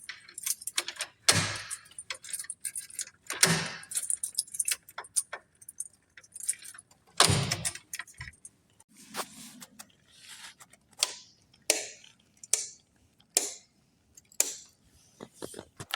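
Irregular small clicks, taps and rustles of objects being handled at close range, with a few louder knocks about a second and a half, three and a half and seven seconds in.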